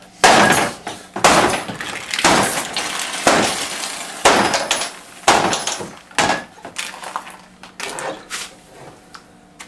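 Repeated hard blows of a long flat stick smashing down onto something on a workbench, about one a second, each a sharp crack with a crunching smash. The last few blows near the end are lighter and come quicker.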